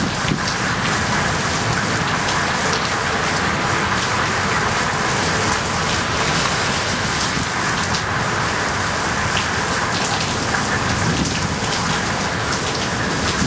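Heavy downpour: rain pouring steadily in a hiss, drumming on pavement and other hard surfaces.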